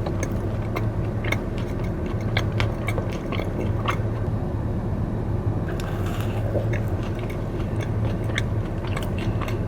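Close-up chewing and mouth sounds of someone eating a Krispy Kreme blueberry cake donut: soft bites and small wet clicks scattered through, over a steady low hum.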